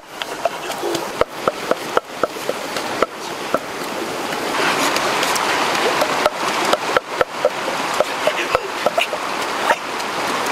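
Water of a rocky stream running, a steady rush that swells in the middle, with sharp clicks and knocks scattered through it.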